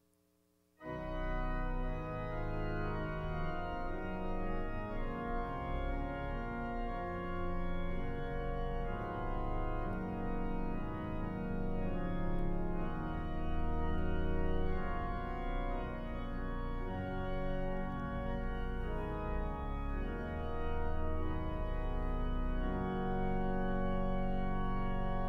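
Organ playing a hymn tune in sustained chords, starting abruptly about a second in.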